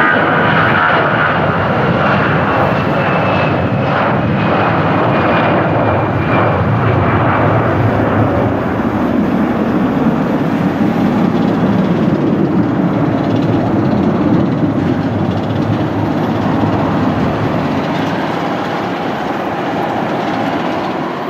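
Airbus A321 jet engines at takeoff thrust during the takeoff roll and climb-out: a loud, steady rumble with a thin high whine that slides slowly down in pitch over the first several seconds. The sound begins to fade near the end as the aircraft climbs away.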